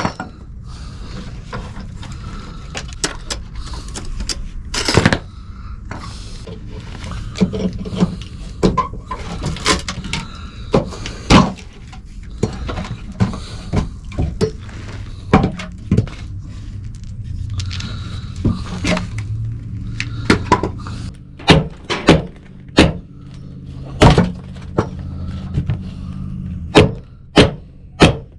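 Rotten wooden sill-plate boards being struck and broken out with hand tools: a string of sharp knocks and cracks, irregular at first and coming about two a second near the end, over a steady low hum.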